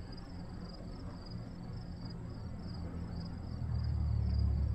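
Crickets chirping in a steady, high-pitched rhythm, about three chirps a second. A low rumble grows louder near the end.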